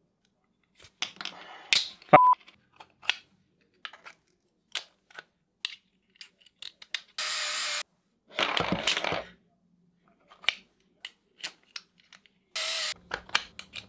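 Clicks and clinks of steel pot magnets, screws and 3D-printed plastic holders being handled and fitted together by hand. About two seconds in comes a sharp metallic click with a short ring, the loudest sound, and later there are three short rushing noises.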